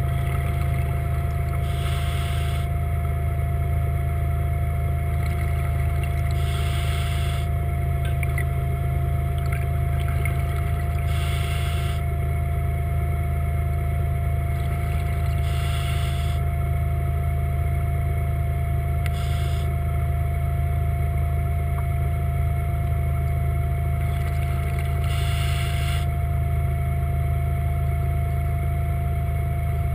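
Seacraft underwater scooter's electric motor running at steady speed underwater, a constant hum. Short bursts of hiss about every four to five seconds are the diver's exhaled regulator bubbles.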